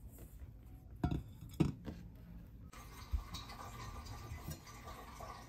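A few light knocks and clatters as peeled potatoes and kitchen things are handled and set down on a plastic cutting board and counter: two knocks about a second apart near the start, then a softer one about three seconds in.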